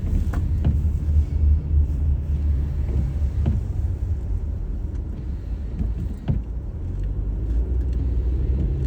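Car driving on a snowy road: a steady low rumble of engine and tyres, with a few light knocks scattered through it.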